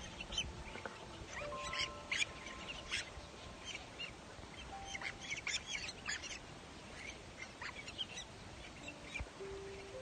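Cormorant chicks in the nest calling, many short high-pitched squeaks coming in quick clusters.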